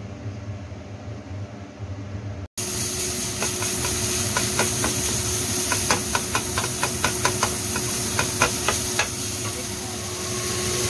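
Minced meat sizzling in oil in a nonstick frying pan as a wooden spatula stirs it, with a quick run of clicks of the spatula on the pan. Before that, for about two and a half seconds, there is only a low steady hum.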